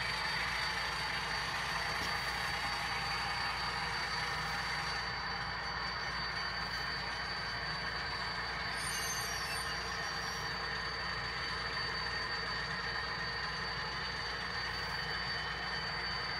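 Model diesel locomotives' engine sound running steadily, with a thin steady high whine over it. A brief high squeak comes about nine seconds in.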